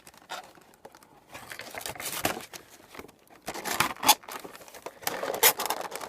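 Crinkly plastic and cardboard packaging of a Funko Pop box rustling and scraping in irregular bursts as the vinyl figure is worked back into it.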